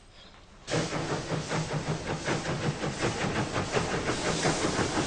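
Steam locomotive hissing loudly, with a rapid pulsing through the hiss; the sound starts abruptly just under a second in.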